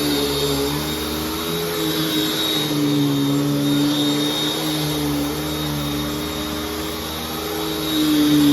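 Hoover Tempo U5140-900 upright vacuum cleaner running while vacuuming, its motor humming steadily with a slight waver in pitch and a rise in loudness near the end. Its hose is clogged, which the owner found only after filming.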